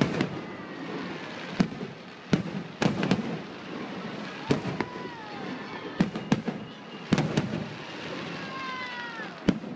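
Aerial fireworks shells bursting overhead: a run of about a dozen sharp, irregularly spaced bangs over steady crackling.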